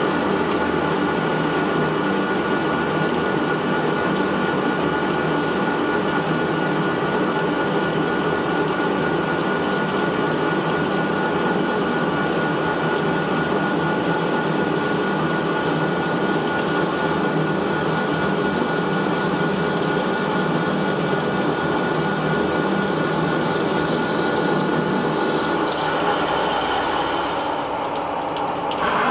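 CNC lathe turning a metal workpiece under flood coolant: the spindle and machine run with a steady whine over a constant wash of cutting and coolant noise, dipping slightly near the end.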